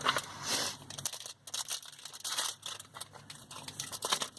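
Crinkling and rustling of trading-card pack wrappers and cards being handled, in many quick small crackles.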